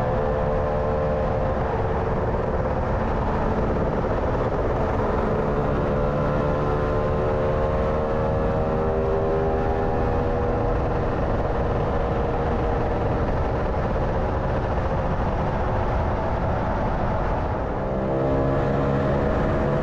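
Lambretta scooter engine running under way, its note rising and falling with road speed, over heavy wind buffeting on the microphone. Near the end the sound dips briefly and the engine picks up at a different pitch.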